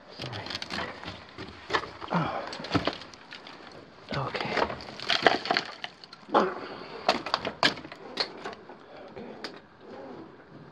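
Footsteps crunching over loose rock rubble and gravel, with irregular sharp clicks and cracks of stones shifting underfoot.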